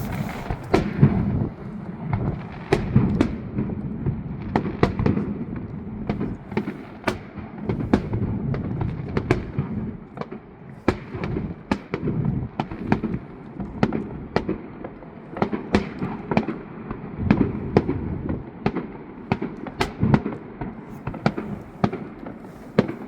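Many fireworks going off in a continuous barrage: a steady low rumble of distant booming bursts overlaid by frequent sharp cracks, several a second at times.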